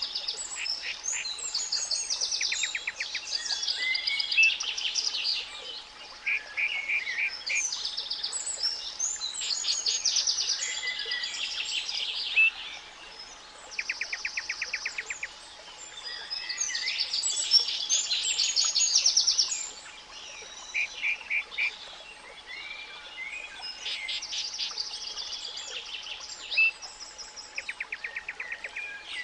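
Spring birdsong: several birds singing and chirping over one another, with repeated rapid trills. Beneath them a faint, steady 852 Hz pure tone holds unchanged.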